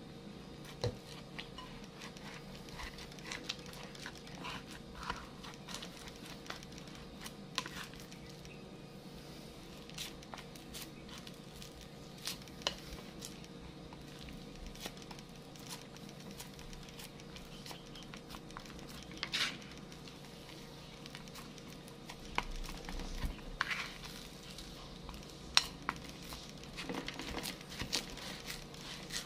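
A spatula scraping and stirring a stiff, crumbly graham-cracker and condensed-milk mixture in a glass bowl, with scattered clicks and knocks against the glass. The clicks come more often near the end.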